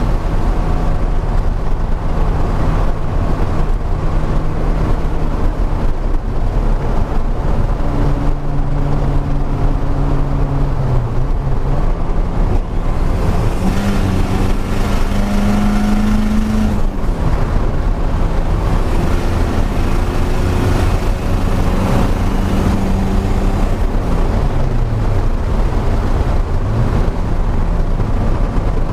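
Car engine and road noise while driving: a steady engine drone with wind and tyre noise, the engine pitch climbing about halfway through, dropping a few seconds later and dipping again near the end as the revs change.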